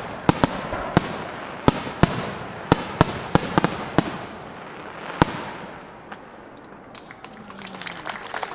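Starmine barrage of aerial firework shells bursting in rapid succession, several sharp bangs a second with a crackling wash between them. The barrage stops about five seconds in, leaving only faint scattered crackles.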